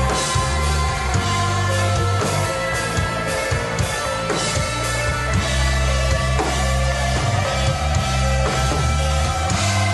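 Rock band playing live, with no vocals: electric guitars holding sustained chords over bass guitar and a full drum kit with cymbals.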